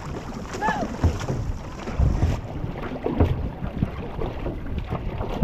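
Wind rumbling and buffeting the microphone, with a short high-pitched call rising and falling a little under a second in.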